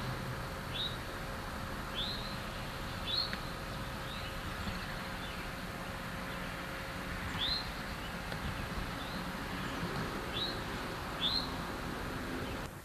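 A small bird giving short, high chirps at irregular intervals, about nine in all, over a steady outdoor background with a faint hum.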